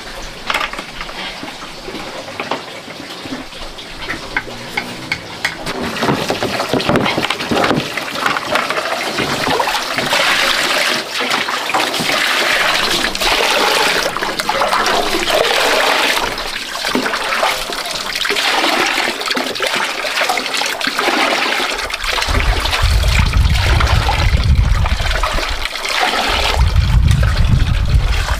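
Water running and splashing steadily, louder after the first few seconds. Near the end a low rumble comes in twice.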